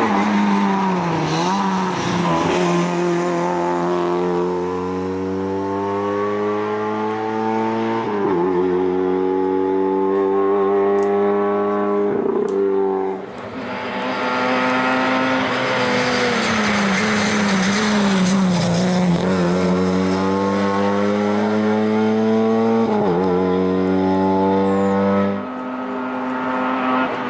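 Lada 2107 Group A rally car's four-cylinder engine at full throttle, its pitch climbing as it revs out and dropping suddenly at each upshift, with a stretch where the revs fall away before it pulls hard again.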